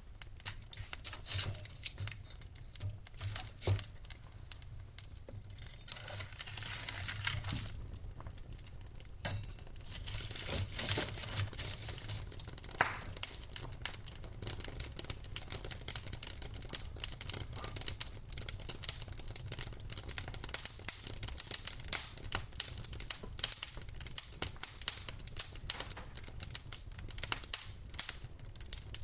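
Wood fire burning in a fireplace: irregular crackles and sharp pops from the logs over a steady hiss of flames, with busier, hissing stretches about six and ten seconds in.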